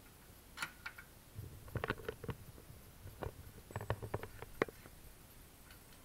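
Irregular light clicks and knocks of a door lock's metal parts being handled and worked with a small tool at the door's edge, some in quick clusters, over a low handling rumble.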